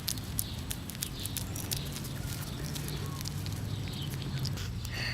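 Light, irregular rustling and clicking in grass, with a few faint bird chirps over a steady low hum.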